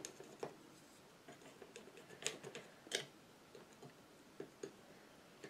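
Palette knife dabbing thick acrylic paint onto a canvas panel: faint, irregular taps and clicks, a few seconds apart.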